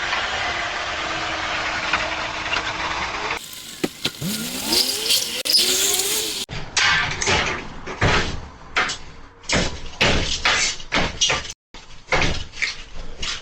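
Car engine noise: a steady rumble, then revving with the pitch rising about three to four seconds in, followed by a run of irregular knocks and clicks.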